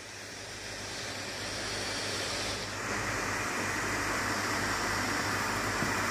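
ASUS ROG Strix Scar G732 gaming laptop's cooling fans blowing hard, a steady rushing hiss that grows louder and is strongest from about three seconds in. The fans are at high speed because the laptop is working flat out mining cryptocurrency; the owner calls them really loud.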